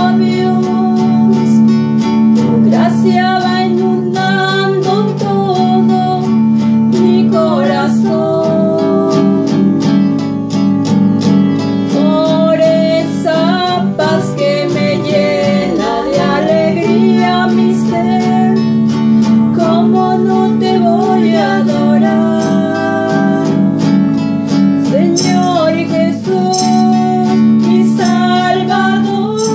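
Eucharistic hymn in Spanish, sung to steadily strummed acoustic guitar.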